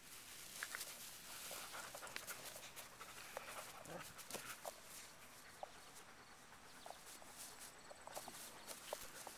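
Faint rustling and scattered soft ticks of a Scottish Deerhound puppy running through long grass and tussling with a rope-and-ball chew toy.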